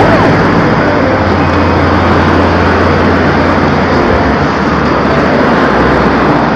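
Steady loud rushing noise from riding a bicycle along a busy city street, with car traffic passing close alongside. A low engine hum from a nearby car runs from about one to four seconds in.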